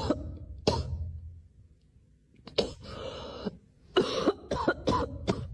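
Short bursts of coughing: two single coughs under a second apart, a pause, another cough, then a quick run of coughs near the end.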